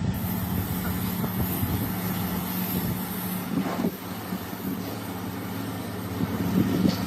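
An engine running steadily, a low even hum over a noisy background.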